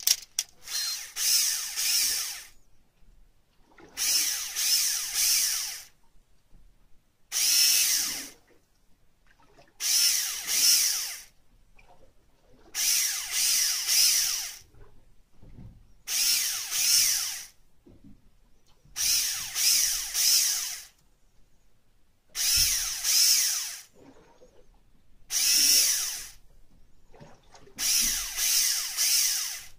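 Electric fishing reel's motor winding in line in short bursts: about ten whines of one to two seconds each, roughly every three seconds, with pauses between.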